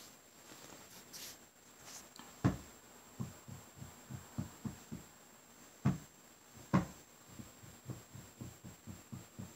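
A hand tapping on a bed blanket: soft low thuds at about four a second, with three louder thumps, about two and a half, six and seven seconds in.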